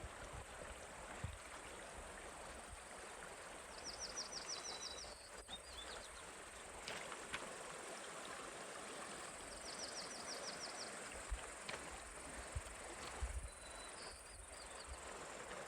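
A high-pitched, fast trill from a wild animal, each about a second long, repeats about every six seconds over a steady outdoor hiss. A few soft low thumps sit under it.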